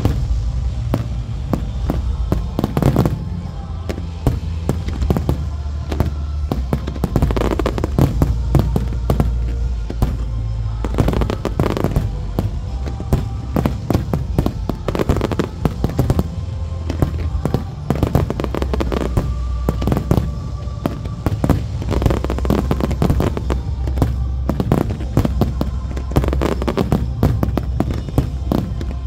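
Fireworks going off in quick succession, a dense run of sharp bangs and crackles, over loud music with a steady heavy bass: a fireworks display set to a soundtrack.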